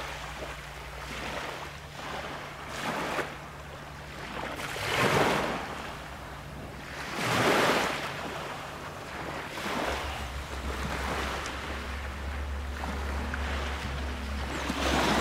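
Small sea waves breaking and washing up a sandy beach, each surge swelling and then fading as it runs back. Two waves are louder, about five and seven and a half seconds in.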